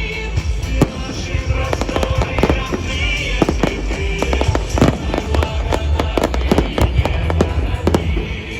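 Fireworks display: many sharp firework bursts and bangs in quick, irregular succession, over music with a heavy bass.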